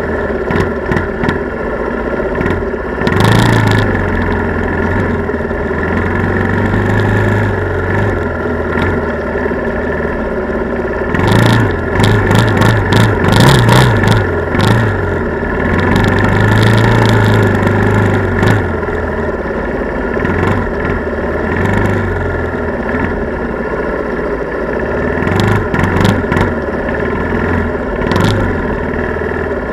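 ATV (quad) engine running under way, its note swelling and easing with the throttle, with repeated knocks and rattles from riding over a bumpy snow-covered trail, most of them about a third of the way in and again near the end.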